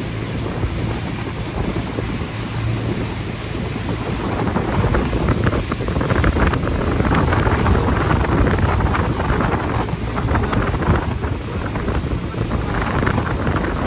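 Wind buffeting the microphone on a moving tour boat, over the low drone of the boat's engine and water rushing past the hull. It grows louder about four seconds in.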